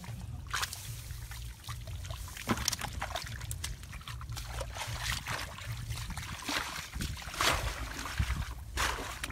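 Hands splashing and squelching in shallow muddy water, a string of irregular sloshes, over a steady low rumble.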